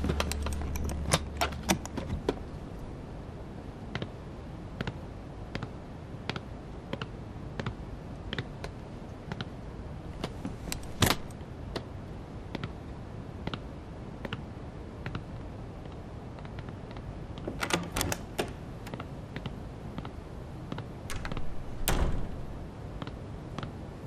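Scattered clicks and light knocks of a wooden case being handled and its metal catches worked. There is a cluster of clicks in the first two seconds, a single sharp click about halfway through and another flurry about three quarters of the way in.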